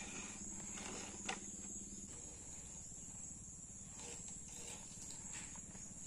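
Quiet outdoor background with a steady high insect buzz, and a few faint clicks of plastic toy vehicles being handled on a wooden bench.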